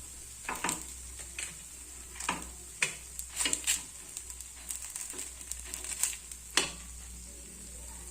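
A spoon or skewer scraping and clicking against a hot paddu (paniyaram) pan as the cooked paddu are lifted out of their hollows: a dozen or so short, irregular scrapes and clicks, with oil sizzling in the pan.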